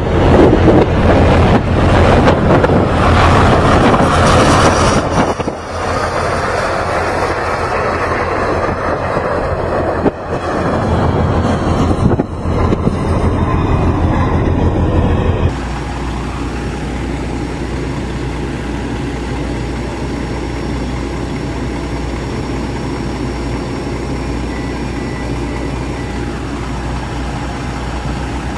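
Loud, gusty wind noise for about the first half, then an abrupt cut to a steady low hum of a diesel semi truck idling.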